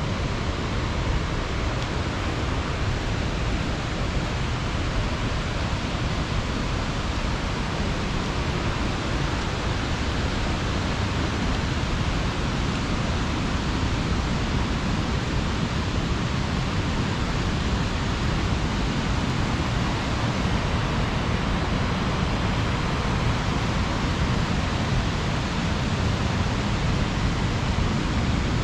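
Steady rush of falling water from Linville Falls, an even, unbroken noise with a deep low rumble.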